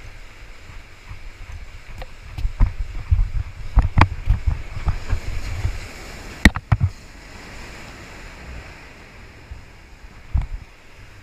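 Surf washing over jetty rocks with wind rumbling on the microphone. Between about two and seven seconds in comes a run of low knocks and sharp clicks, handling noise from the rod and spinning reel as the jig is worked, with one more knock near the end.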